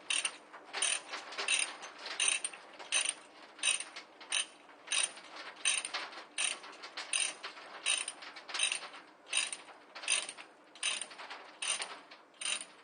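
Ratchet dog (ratchet-type chain load binder) being worked handle stroke by handle stroke to tension a truck's load chain: its pawl clicks in a steady rhythm, a loud click about every three-quarters of a second with softer clicks in between.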